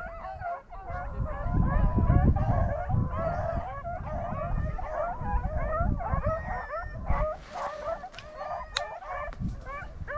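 A pack of rabbit dogs baying continuously, several voices overlapping, as they run a rabbit on its track. Wind rumbles on the microphone underneath.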